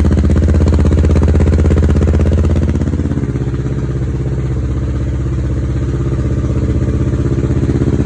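Kawasaki Ninja 650 parallel-twin engine idling through a Two Brothers Racing Silver Series carbon aftermarket exhaust on its first warm-up. It runs at a steady fast idle, then settles to a slightly lower, quieter idle about three seconds in.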